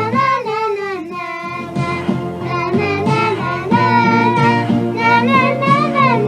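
Music: a song with a voice singing a gliding melody over a steady backing track.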